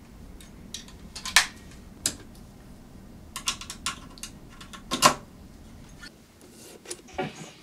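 Quarter-inch guitar cable being plugged into an electric guitar's output jack and then into a small practice amplifier's input: a series of short clicks and scrapes of metal plugs and handling, the loudest a sharp click about five seconds in.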